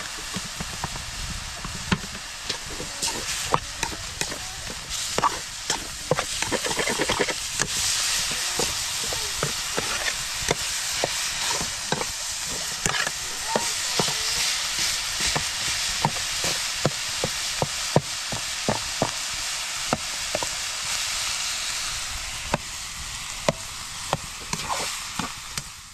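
Food sizzling in a frying pan while it is stirred, with a steady hiss and a utensil repeatedly clicking and scraping against the pan.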